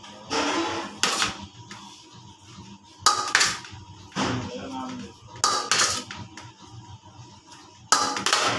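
Metal spatula knife scraping and clinking against a stainless-steel mixing bowl and a metal cake turntable while cream is scooped and spread on a cake, in about five separate scraping bursts.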